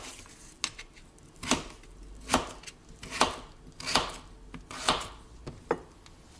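Kitchen knife chopping peeled potato into chunks on a plastic cutting board. Each cut ends in a sharp knock of the blade on the board, about once a second, seven strokes in all.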